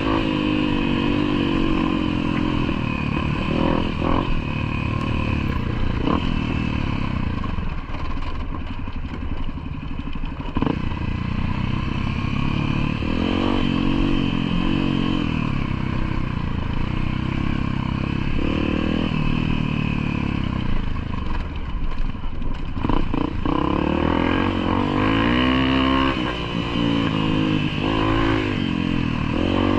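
Motorcycle engine running on a dirt trail, its pitch rising and falling with the throttle, with occasional knocks and clatter.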